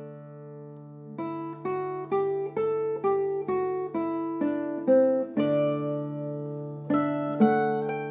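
Solo plucked-string instrument playing a Renaissance alman. It opens on a ringing chord, then picks out a melody of single notes about two a second over a held bass, striking fresh chords a few times.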